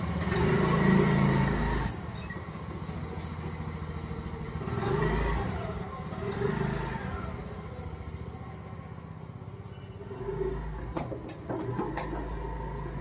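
Motor scooter engine running at the gate, loudest for the first two seconds, then fading as the scooter pulls away, with two sharp clicks about two seconds in and a few more near the end.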